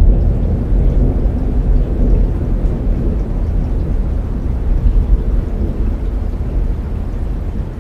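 Rolling thunder, a deep rumble that slowly fades, with rain falling.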